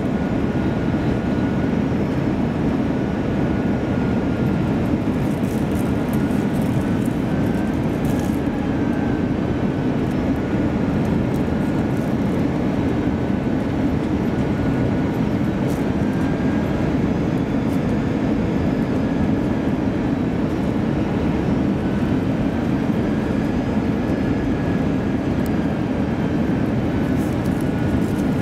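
Steady cabin noise inside an Airbus A321-200 airliner descending toward landing: a constant engine and airflow roar with a faint whining tone that drifts slightly up and down in pitch.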